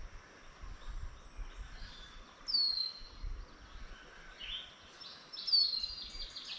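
A wild bird calling twice, each a short high whistle that slides downward, about three seconds apart, over faint outdoor background noise.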